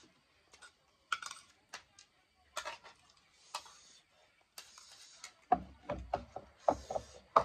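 Close-up eating sounds of two people eating spicy ramen noodles: short, hissy slurps about once a second, with spoons clinking and tapping against the bowls. The clinks and knocks come in a quick cluster near the end.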